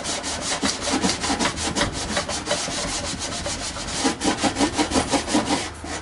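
Norwex EnviroCloth, a microfibre cloth with a scrubby patch, scrubbed hard back and forth over the inside of a microwave, about four or five rubbing strokes a second.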